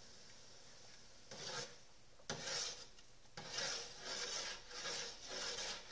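A spoon stirring wort in a pot, scraping against the pot in repeated strokes, while thick liquid malt extract is mixed in. The strokes start about a second in and settle to about two a second.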